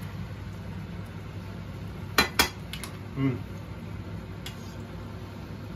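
A metal teaspoon clinking against a pan: two sharp clinks about two seconds in and a lighter one just after, then a brief low vocal sound. A steady low hum runs underneath.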